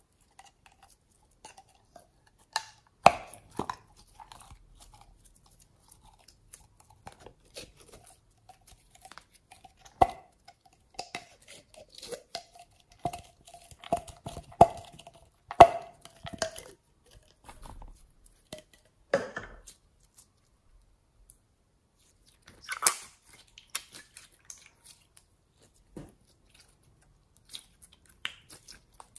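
Thick slime being squeezed out of a bottle and then kneaded by hand: sticky squelches with sharp clicks and pops, and a thin wavering squeak for several seconds in the middle.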